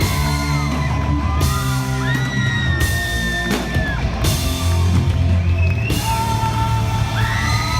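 Rock band playing live in a large hall: bass and drums under long held notes, with cymbal washes that come and go every second or two.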